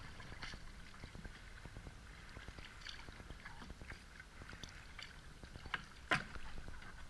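Kayak paddling: paddle blades dipping and splashing, water dripping off the shaft, and many small ticks of drips and splashes throughout. A sharper, louder splash comes about six seconds in.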